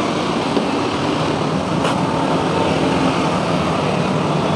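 Steady noise of a vehicle in motion: an even rush with a faint low hum underneath.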